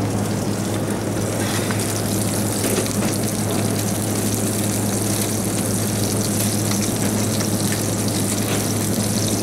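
Whole lemon sole sizzling in a hot pan drawn out onto the open oven door, the sizzle thickening about a second and a half in. Under it, a steady low hum of commercial kitchen equipment.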